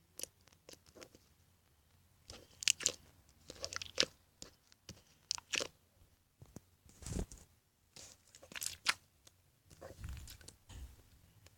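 Jiggly slime with floam beads being squeezed and played with by hand: irregular bursts of sticky clicks and crunchy crackles, with a dull thump a little past halfway.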